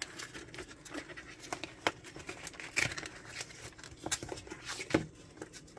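Cardboard packaging being torn and peeled off a plastic toy container, with irregular scraping, rustling and sharp clicks; the sharpest clicks come about two seconds and five seconds in.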